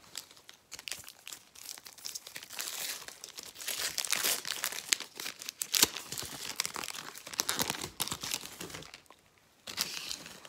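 Wrapper of a Megacracks football card pack crinkling and tearing as the pack is opened by hand, in irregular crackly bursts with a short lull near the end.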